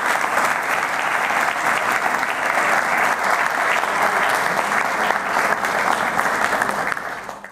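Audience applauding, a steady dense patter of clapping that fades out near the end.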